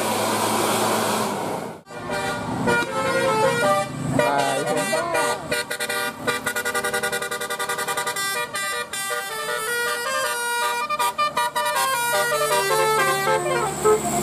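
Bus telolet horn playing a tune: a sequence of stepped, changing horn notes, with a fast run of rapidly repeated notes in the middle. It follows about two seconds of steady noise that cuts off abruptly.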